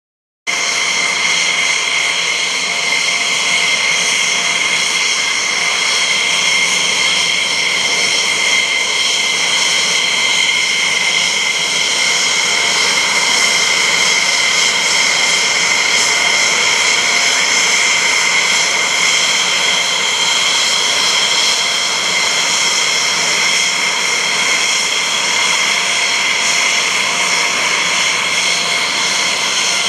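Boeing C-17 Globemaster III's four turbofan engines at high power for takeoff and climb-out: a steady jet rush with several high-pitched whine tones held at an even pitch.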